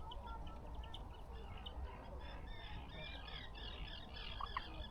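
Small birds singing and chirping, a busy run of short calls and trills, over a low steady rumble.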